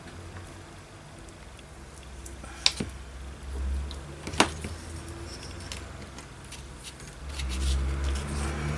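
Two sharp clicks about a second and a half apart as craft supplies are handled on a work table, over a low steady hum; a low rumble builds near the end.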